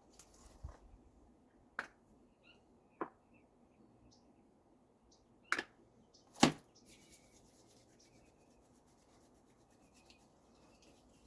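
A person's neck joints cracking as they are worked by hand: a series of sharp pops, one a quick double pop, the loudest about six and a half seconds in.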